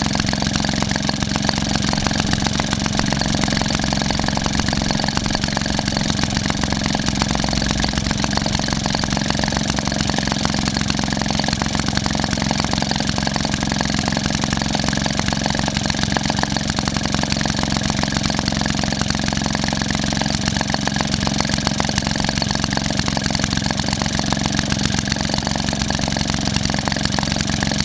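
1946 Maytag model 72D twin-cylinder two-stroke engine running steadily at about 1,330 rpm, a fast even exhaust beat that does not change.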